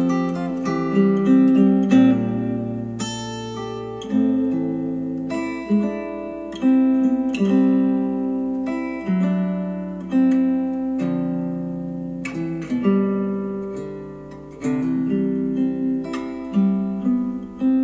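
Instrumental acoustic guitar music, plucked notes and chords that each ring out and fade before the next, played back through KEF Q350 bookshelf speakers driven by an Audiolab 6000A integrated amplifier.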